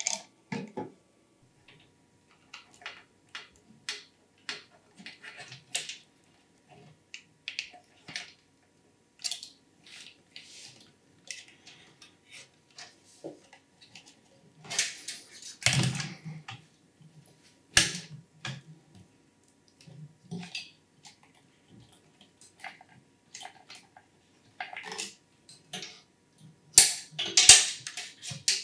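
Scattered clicks, taps and knocks of hard plastic and metal computer parts being handled and fitted while an AIO liquid cooler is installed. There are louder clatters about halfway through, again a couple of seconds later, and near the end.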